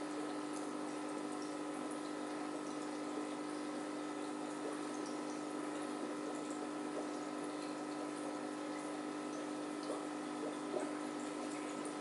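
Aquarium filter pump running: a steady hum under an even wash of bubbling water, with a couple of faint ticks near the end.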